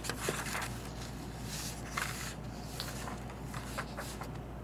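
Paper pages of a handmade junk journal being turned and handled by hand: soft rustles of paper with a few light ticks, over a steady low hum.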